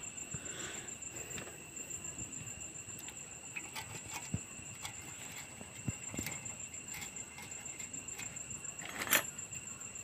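Small metallic clicks and clinks from a moped's steel exhaust muffler being handled and its top pipe fitting turned by hand, with one sharper clink near the end. A steady high chirring of insects runs underneath.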